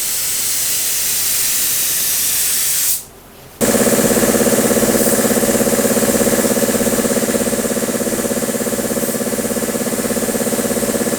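Steady high hiss of compressed air, which stops for about half a second near three seconds in. When it comes back, a motor-driven machine starts running under it with a steady hum and a fast, even pulsing.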